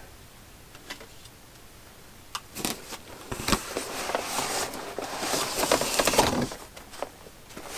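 Cardboard shipping box rustling and scraping as a padded guitar gig bag is pulled out of it, with a few sharp knocks; quiet at first, the handling starts a couple of seconds in.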